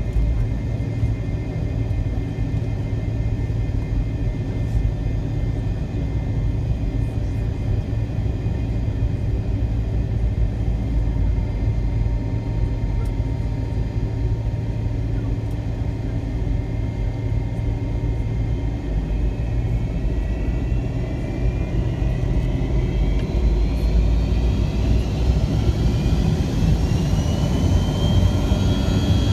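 Steady low rumble and hum of a McDonnell Douglas MD-88 heard from inside the cabin, its rear-mounted Pratt & Whitney JT8D turbofans running as it taxis. About two-thirds of the way through a rising whine sets in and the sound grows louder as the engines spool up for takeoff.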